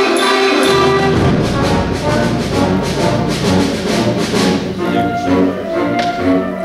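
Wind band with brass playing loudly. A held chord gives way about a second in to a dense, heavy passage with strong low instruments, and near the end the band plays short, repeated rhythmic notes.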